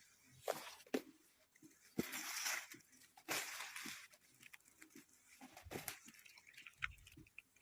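A spaniel eating raspberries: faint, scattered mouth clicks and chewing smacks, with a few short breathy noises.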